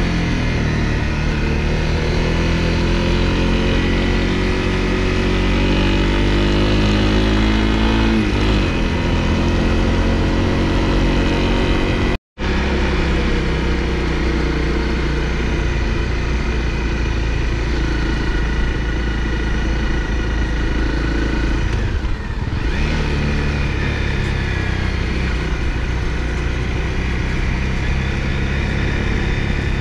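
Honda CRF250L's single-cylinder engine running under way, its note climbing steadily over the first eight seconds, then dipping briefly before settling into a steady run. The sound cuts out completely for an instant about twelve seconds in, and the engine note dips briefly again a little past twenty seconds.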